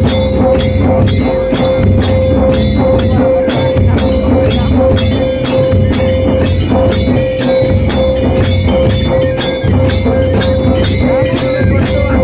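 Tribal drums beaten loudly in a steady, fast rhythm of about four strokes a second, with metallic jingling and one high note held steadily over the beat.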